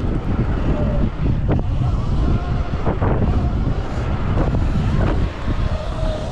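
Wind buffeting the microphone on a Sur Ron X electric dirt bike at race speed, over the faint whine of its electric motor and chain drive drifting up and down in pitch. A few knocks come through as the bike hits bumps in the dirt.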